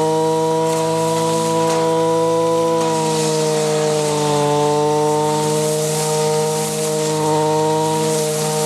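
Zenoah BCZ315 brush cutter's two-stroke engine running at high speed with a grass-cutting blade spinning through knee-high grass; the engine note sags a little about three seconds in, as if under load, and then picks back up.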